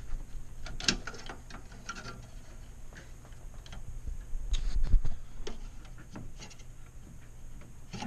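Scattered small clicks and rattles of cable connectors being worked loose from a hard drive inside a metal desktop PC case, with a dull low bump about five seconds in.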